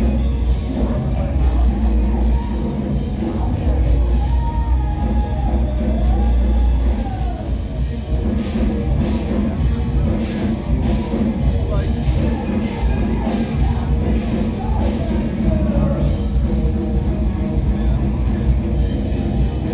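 Live rock band playing loud, with heavy bass and drums under sung vocals.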